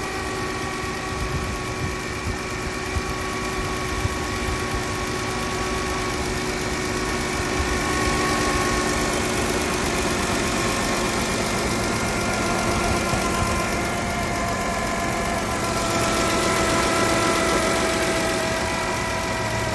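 Chrysler Town & Country minivan engine running steadily at idle, with a steady whine of several tones over the engine note. It is an unusual noise from the engine bay that the owner takes for a sound that doesn't belong to the engine.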